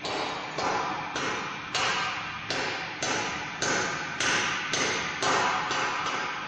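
A run of about eleven sharp taps, roughly two a second, each dying away over about half a second.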